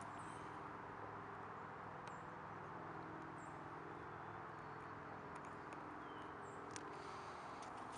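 Quiet outdoor ambience: a steady background hiss with a few short, high bird chirps scattered through, and a couple of faint clicks like footsteps on dry grass and leaves.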